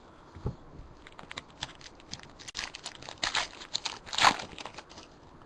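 Foil trading-card pack wrapper crinkling as it is torn open, a run of fine crackles that is busiest and loudest near the end.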